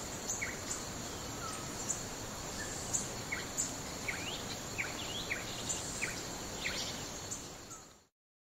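Woodland ambience: a steady hiss under a thin, high insect-like drone, with a run of short falling bird chirps from about three seconds in and faint high clicks. The sound fades out near the end.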